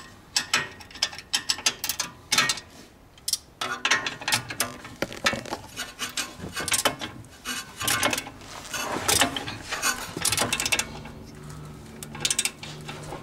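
Ratchet wrench clicking in quick irregular bursts as a suspension nut on a car's front coilover and sway-bar end link is worked on and off.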